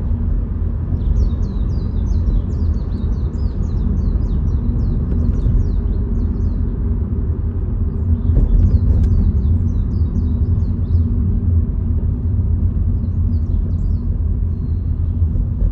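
Steady low road rumble of a car driving, with birds chirping in quick runs of high notes that come and go in several bursts.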